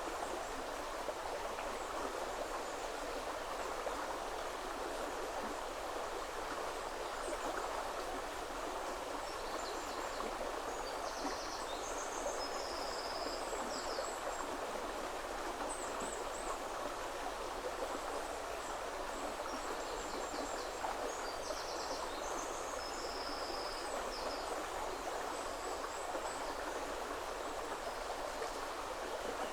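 River water flowing in a steady rush, with small birds giving short, high-pitched calls and trills on and off over it.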